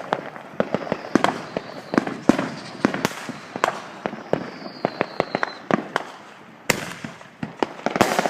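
Consumer fireworks and firecrackers going off all around: a constant, irregular string of sharp bangs and pops, some loud and some faint. A faint falling whistle comes about four seconds in, and a loud bang near the end.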